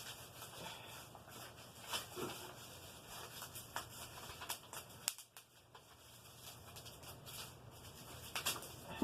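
Scattered light clicks and rubbing from plastic parts being handled, with a sharp click about five seconds in and a louder one near the end.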